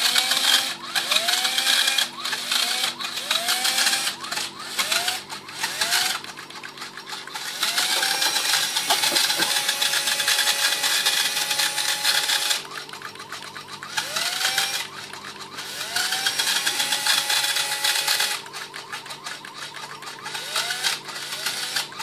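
Small electric drive motor of a home-built robot vacuum, run under Raspberry Pi speed control: a whine that rises each time it spins up, over and over, with two longer stretches of steady running about eight and fifteen seconds in.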